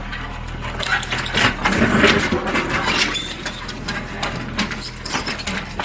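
John Deere 410 backhoe's diesel engine running steadily, with repeated sharp cracks and knocks as the small building's structure is broken apart, thickest a second or two in.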